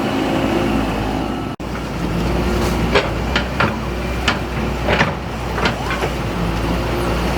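Diesel engine of heavy earthmoving machinery running steadily, with a run of about seven short, sharp clanks in the middle.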